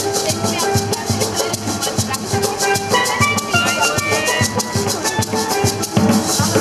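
Steel pan music with drums and a shaker keeping a steady beat, the pans playing short ringing melodic runs.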